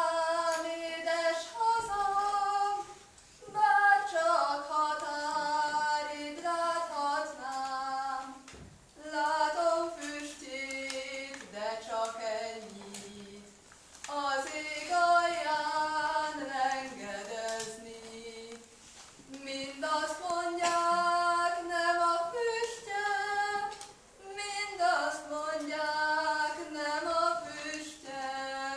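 A young woman singing a Hungarian folk song solo and unaccompanied, in phrases of about five seconds with short breaths between them.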